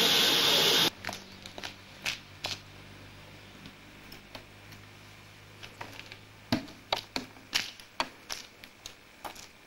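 A loud, even hiss cuts off suddenly about a second in. It is followed by a faint low hum with scattered light clicks and taps, which come more thickly in the last few seconds.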